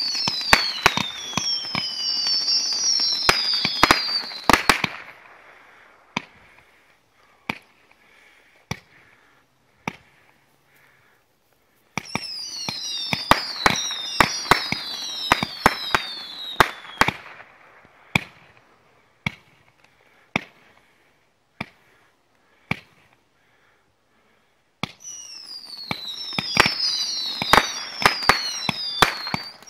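Brothers "Reign of Heroes" 60-shot fireworks cake firing in three volleys: at the start, about 12 s in, and about 25 s in. Each volley is a cluster of whistles falling in pitch, mixed with sharp bangs, and trails off into scattered single reports.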